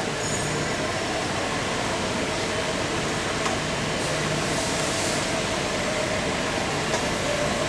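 SKD-610 CNC pipe cutting and beveling machine running, its motor-driven ring carrying the cutting tool around a steel pipe. A steady mechanical noise with a steady whine.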